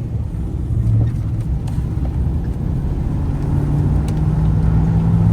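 A vehicle's engine running with road noise while driving, the engine note rising a little about three seconds in.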